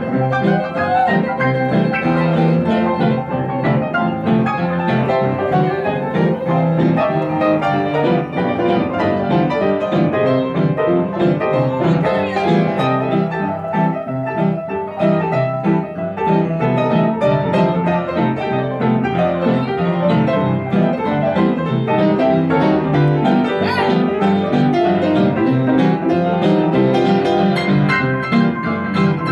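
Upright piano playing an instrumental blues solo: a dense, steady stream of chords and runs.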